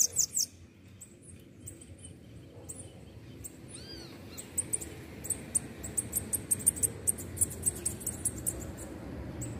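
A caged bananaquit (sibite) singing a fast series of very high, thin chirps. The song breaks off just after the start and comes back more faintly from about halfway through.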